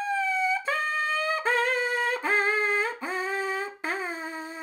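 Lips buzzing into a trumpet mouthpiece on its own, without the trumpet: six separate notes stepping down in pitch, each sliding up slightly as it starts. The pitch changes come from buzzing faster or slower air.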